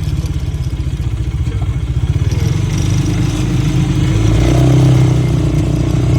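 Vehicle engine running close by with a low, pulsing throb, getting louder about four to five seconds in.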